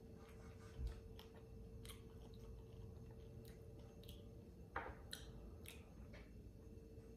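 A person chewing a mouthful of food with the mouth closed: faint, irregular wet chewing sounds and small crisp clicks, with a low thump about a second in, over a faint steady hum.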